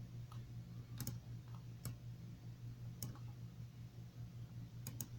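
Faint, sharp clicks, about seven, scattered irregularly, two close together near the end, over a steady low hum.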